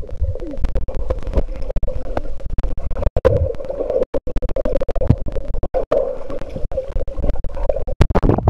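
Muffled underwater sound picked up by a waterproof compact camera held under a swimming pool's surface: a steady hum with a low rumble and many crackles and clicks from bubbles and swimmers moving in the water. The sound cuts out briefly several times, about three, four, six and eight seconds in.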